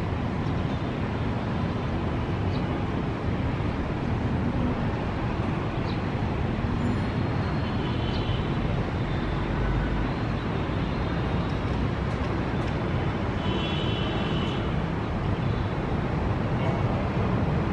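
Airbus A321-231's IAE V2500 jet engines at taxi idle: a steady low rumble with a hiss over it.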